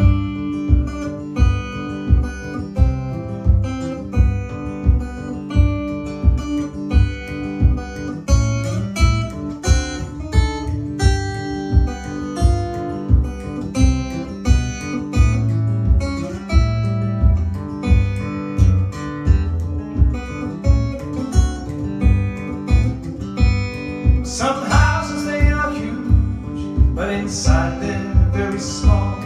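Live acoustic blues guitar playing, picked and strummed over a steady low thump on each beat. About 24 seconds in, a brighter, bending melody line joins in on top.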